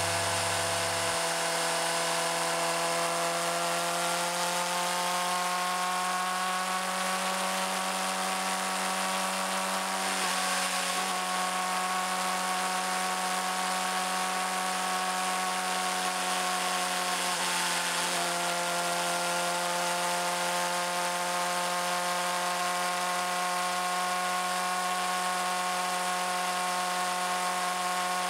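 Suzuki GSX-R600 inline-four engine running at a steady cruise, heard as a steady whine whose pitch drifts slowly, easing briefly about ten seconds in and again about eighteen seconds in.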